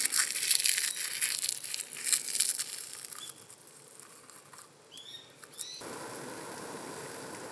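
Plastic food packaging crinkling loudly as it is handled and opened during the first few seconds. It then goes quiet, with two short high chirps, and a steady hiss takes over near the end.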